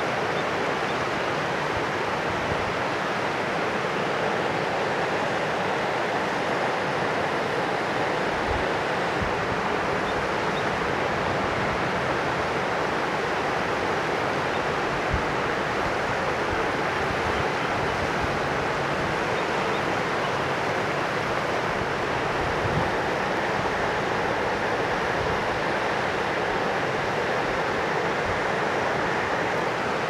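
Mountain river rushing, a steady, unbroken sound of flowing water.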